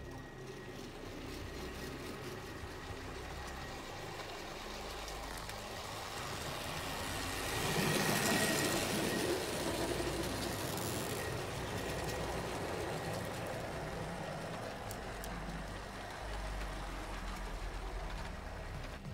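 Model railway locomotive running along the track with a string of coaches, its small electric motor humming and the wheels rumbling on the rails. It grows louder as the train passes close by about eight seconds in, then eases off as it moves away.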